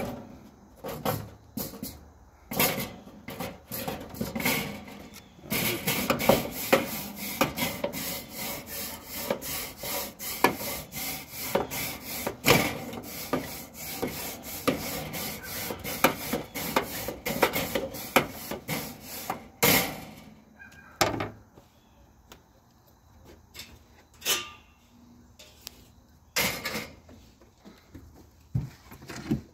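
Grill brush scrubbing the metal cooking grate of a charcoal kettle grill in rapid back-and-forth strokes for about fourteen seconds, after a few clanks as the grate is set in place. A few sharp knocks follow near the end.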